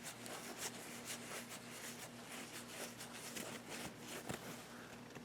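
Faint, irregular scratchy rubbing as the model locomotive's wheels are cleaned of leftover residue, over a faint steady hum.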